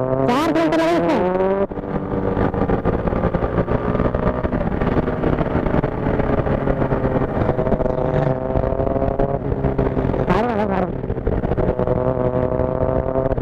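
Motorcycle engine running steadily at cruising speed, heard from on the bike, its pitch drifting only slightly.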